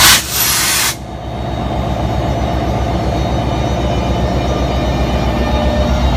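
Alstom PL42AC diesel-electric locomotive: a loud burst of air hiss for about the first second, then its EMD 16-710 diesel engine running with a steady pulsing rumble under a faint steady whine from the IGBT traction inverters, the sound building over the next two seconds.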